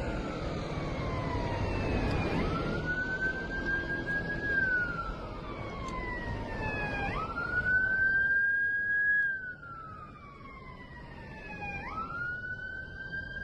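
An emergency-vehicle siren wailing in repeated slow cycles: each one jumps quickly up in pitch, holds, then slides down over a couple of seconds before the next. A rough background noise runs under the first part and drops away at about nine and a half seconds.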